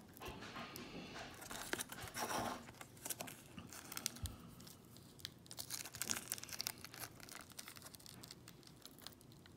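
Plastic bag crinkling and being torn open by hand, in irregular crackles and rustles.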